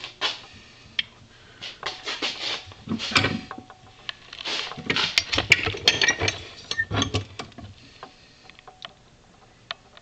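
Metal parts of an old ceiling fan motor clinking and scraping as they are handled: a run of irregular clicks and knocks from about one and a half to seven and a half seconds in, then only a few faint ticks.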